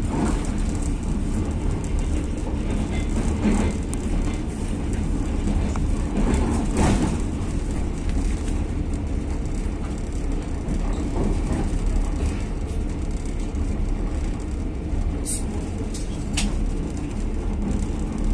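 Steady running noise of a passenger train at speed, heard from inside a carriage at the window: wheels rumbling on the rails with rushing air. A couple of brief sharp high ticks come near the end.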